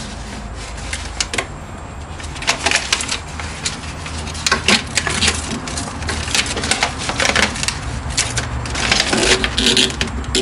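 Hands pressing and rubbing an adhesive-backed plastic shelf liner into a hard motorcycle saddlebag: irregular clicks, crinkles and scuffs of plastic on plastic, with a steady low hum underneath.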